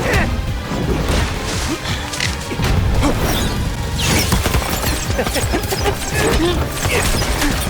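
Dramatic background music mixed with repeated crashing impact sound effects.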